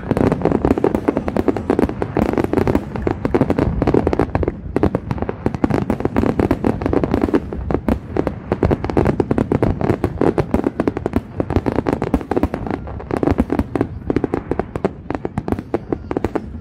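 A fireworks display: a dense, unbroken barrage of sharp bangs, many per second, with no let-up.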